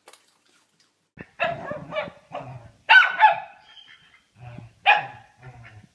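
Small fluffy dog barking in short, sharp barks, about six of them, some in quick pairs.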